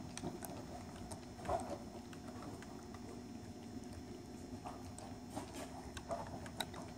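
Model freight cars rolling along the track, their wheels clicking irregularly over the rails, over a steady hum. A few louder knocks stand out, about a second and a half in and near the end.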